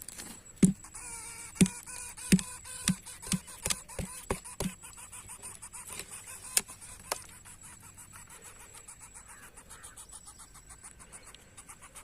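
A series of sharp knocks or taps, roughly two a second for the first five seconds, then two more. After that comes faint, rapid ticking, like tiny scraping or tapping.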